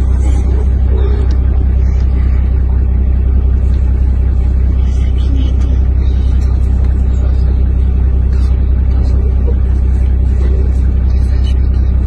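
A vehicle engine idling with a steady low rumble that holds level throughout, with faint voices and small sounds above it.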